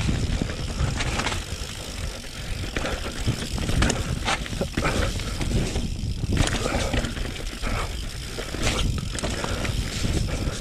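Mountain bike riding down a rough forest singletrack: the tyres roll over dirt and roots, and the bike gives frequent irregular knocks and rattles over a steady low rumble.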